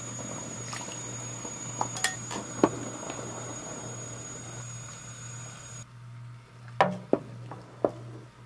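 A pot of black bean sweet soup with tapioca pearls boiling while a wooden spoon stirs it, with a steady bubbling hiss. Several light knocks of the spoon against the pot, a few about two seconds in and a few more near the end, after the hiss drops away.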